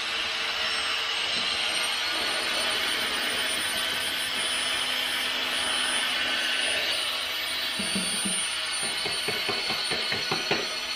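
Electric drill with a paddle mixer running steadily in a small plastic bucket, stirring Matrix Dryve casting compound while the liquid part is poured in. A rapid, even ticking rattle joins the whir near the end.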